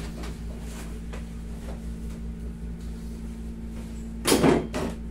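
Steady low hum of a room air conditioner, with a few faint knocks and one short, loud burst of noise about four seconds in.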